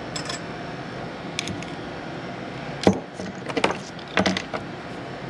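Sharp clicks and light knocks of screwdrivers and small metal parts being handled, as each screwdriver tip is tried on metal for magnetism. The clicks are scattered: a few single ones, the loudest a little under three seconds in, then quick clusters between about three and a half and four and a half seconds in.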